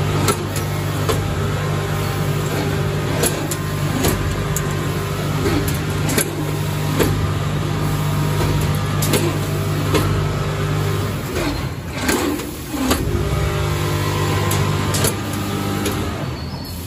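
ATM 920W automatic packing machine with its multihead weigher running: a steady low mechanical hum with sharp clicks and knocks every second or two. The hum cuts out about eleven seconds in and comes back about two seconds later.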